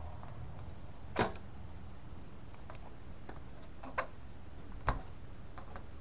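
Sharp clicks and light metallic knocks from a sheet-steel hard-drive cage being handled while its drive screws are worked out with a screwdriver: the loudest about a second in, two more around four and five seconds in, with fainter ticks between.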